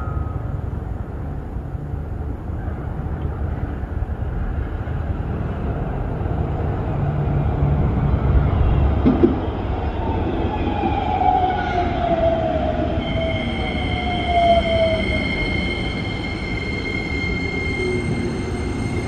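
Keikyū 2100-series electric train approaching and running into the station: a steady rumble of wheels on rail, with a falling whine from about ten seconds in and a steady high squeal from about thirteen seconds in.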